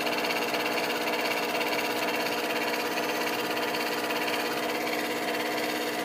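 Old bathroom heater-fan unit running on the bench, its blower motor spinning with a steady, buzzing hum. It runs with its blown thermal fuse bypassed by a temporary wire.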